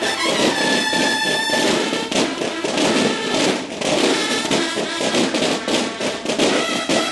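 Military drums of a Mexican banda de guerra playing a fast, dense drum passage. Bugles sound over the drums at the start, drop out after about a second and a half, and come back in near the end.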